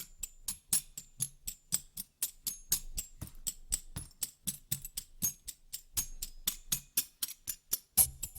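Background music: a light percussion rhythm of quick ticking hits, about four a second, with a fuller drum part coming in near the end.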